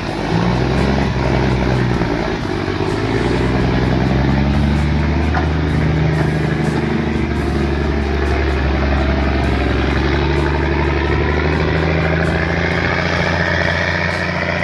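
A large engine running steadily, with a whine that rises slowly in pitch through the second half.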